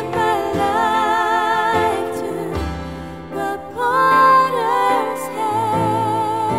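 Worship song: a singer holding long notes with vibrato over instrumental accompaniment.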